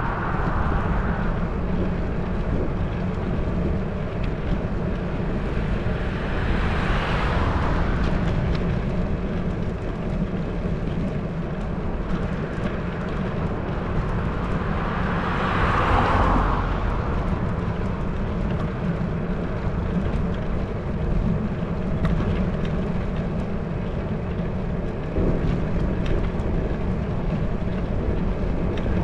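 Steady wind and road rumble on a handlebar-mounted GoPro's microphone while cycling. Vehicles pass twice, each sound swelling and fading, about seven and sixteen seconds in.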